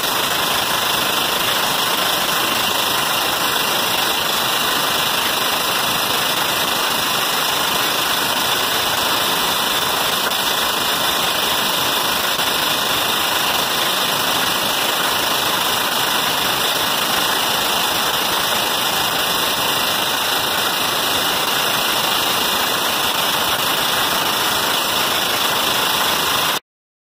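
Tesla-valve pulse jet engine running steadily and loudly, its combustion tube glowing red-hot. The sound cuts off suddenly near the end.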